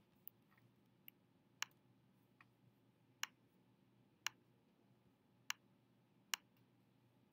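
Faint, separate computer mouse clicks, about eight of them spaced roughly a second apart, against a quiet room.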